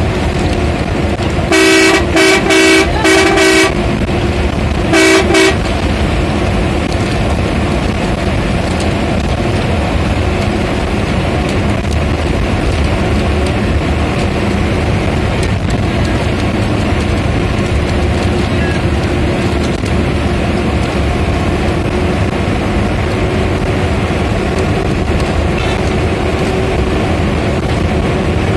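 Bus engine and road noise at highway speed, heard from inside the driver's cab. A loud horn gives a quick run of about four short blasts about two seconds in, then another short burst a few seconds later.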